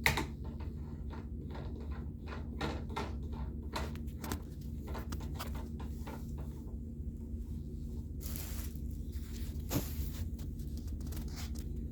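Scattered knocks and clicks of cat-tree parts being handled and fitted together during assembly, with a brief rustling noise about eight seconds in and a sharper knock shortly after, over a steady low hum.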